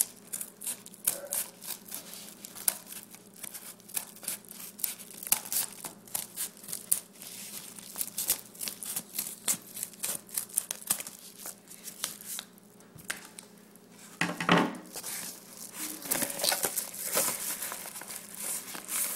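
Scissors snipping through a padded paper mailer envelope in many quick cuts, with the paper crackling and crinkling. It is followed by a louder rustle and more crinkling as the opened envelope is handled.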